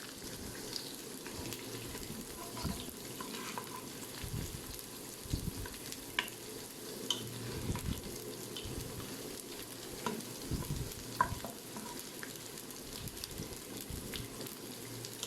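Dried anchovies frying in hot oil with mustard seeds, urad dal and dried chillies in an electric multi-cooker on stir-fry mode. A steady sizzle runs under scattered light clicks and taps as they are stirred.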